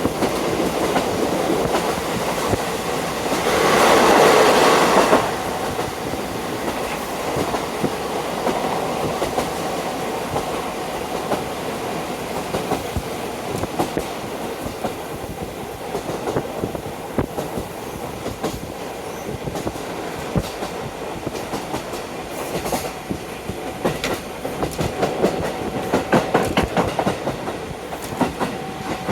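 KiHa 40 diesel railcar running, heard from inside through an open window: wheels clicking over rail joints under steady wind noise, with a loud rush of noise about four seconds in lasting over a second. A faint steady squeal comes in near the end.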